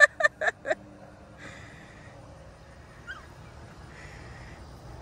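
A rapid run of loud, evenly spaced fowl calls, about six a second, that stops within the first second, followed by faint outdoor background.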